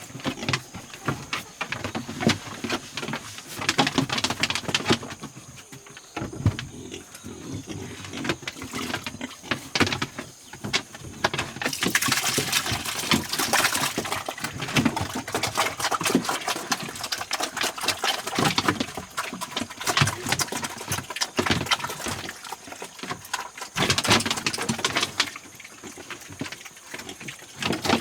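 Pigs grunting among many small knocks and clicks, louder in a couple of dense stretches.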